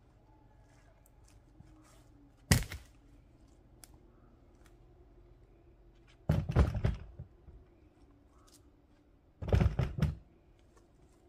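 Split firewood pieces knocking together as they are set onto a woodpile: one sharp clunk about two and a half seconds in, then a clatter of several knocks around six seconds in and again near ten seconds.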